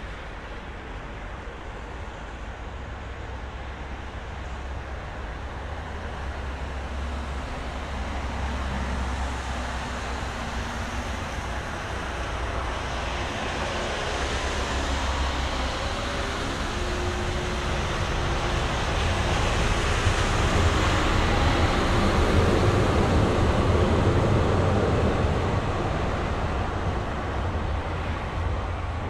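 City street traffic: a steady hum and rumble of passing vehicles that swells over about twenty seconds as a vehicle passes close by, then eases near the end.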